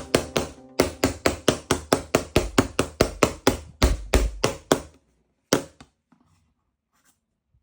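A rapid, even series of sharp knocks, about five a second, that stops after about five seconds. One more knock follows, then near silence.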